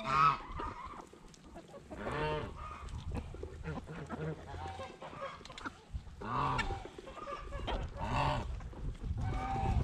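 Poultry calling while feeding at food bowls: several separate honking calls, each rising and falling in pitch, spaced a couple of seconds apart.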